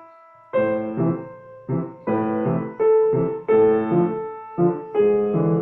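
Piano playing a dance-like passage in short, detached chords, each chord cut off cleanly. This is rhythmic pedalling: the sustain pedal goes down with the hands and comes up with the fingers, so the chords do not blur into each other.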